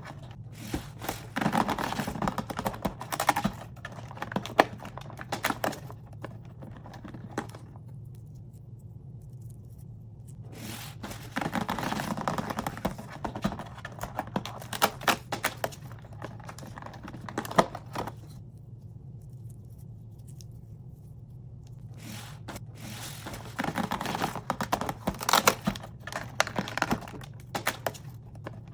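Hands tearing open and crinkling small cardboard and plastic advent-calendar toy packaging: three spells of rustling with sharp clicks, separated by short quiet pauses.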